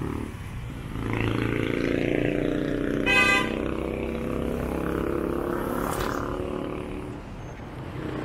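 Street traffic with motorcycle engines running past, rising and then fading away, and a short horn toot about three seconds in, the loudest sound.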